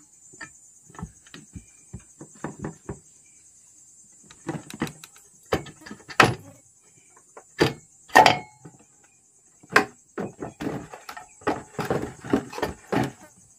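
Two halves of a Honda SP125 engine crankcase being fitted together by hand: a series of metal knocks and clunks as the case parts are handled and pressed into place, the loudest in the middle, then a quicker run of small knocks near the end.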